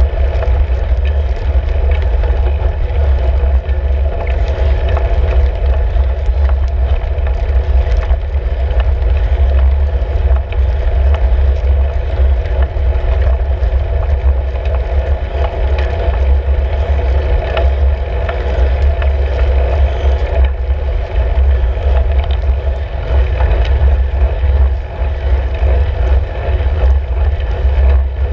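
Loud, steady low rumble of wind and road vibration on the microphone of a camera mounted on a road bike's handlebars while riding, with scattered small clicks and rattles.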